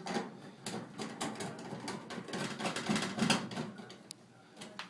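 Irregular clicks, knocks and light rattling of dryer cabinet parts being handled and fitted by hand.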